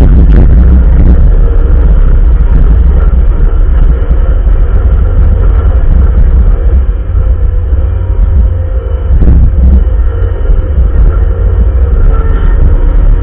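Bobcat loader's engine running steadily under load, a heavy low rumble with a steady whine above it. Brief clunks come just after the start and again about nine seconds in.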